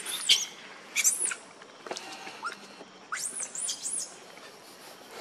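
Infant pig-tailed macaque crying in distress: short, high-pitched squeals that sweep up and back down. Two come near the start, one about a second in, and three follow in quick succession a little after three seconds.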